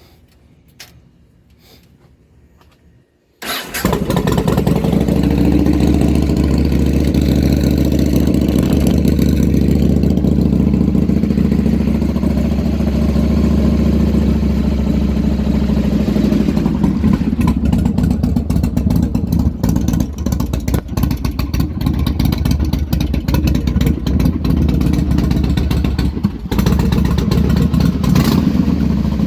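2007 Yamaha Road Star 1700cc air-cooled V-twin starting up about three and a half seconds in, after a few faint clicks, then running steadily and loudly. It sounds healthy: 'a good sound to it'.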